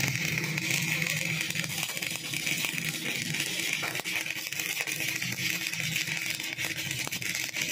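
Stick (shielded metal arc) welding arc crackling and sizzling steadily as a bead is run on a steel bar.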